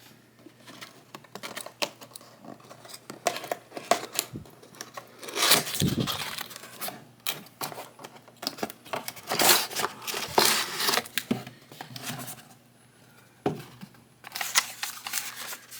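A toy's cardboard-and-plastic box being opened by hand: rustling, crinkling and tearing in irregular bursts, with a quieter pause near the end.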